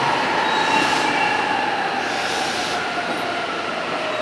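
E259 series Narita Express electric train braking to a stop, its Hitachi IGBT-VVVF inverter whining in slowly falling tones under pure electric braking over wheel and rail noise. A brief hiss comes in about two seconds in.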